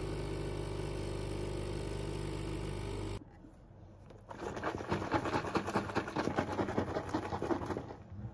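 Coffee machine's pump humming steadily as it dispenses coffee into a thermos, cutting off suddenly about three seconds in. After a short pause, a carton of oat milk is shaken hard, a fast, rattling slosh that runs on to the end and is the loudest sound.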